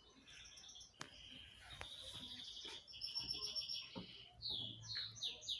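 A small bird chirping: runs of quick, repeated high notes, growing louder toward the end with a series of short falling chirps.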